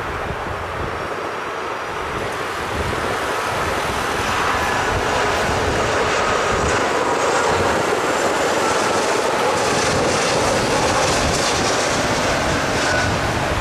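Airbus A330-300's Rolls-Royce Trent 700 turbofan engines on final approach at low power as the airliner passes close by to land: a steady jet rumble and hiss with a faint whine, swelling about three seconds in and then holding.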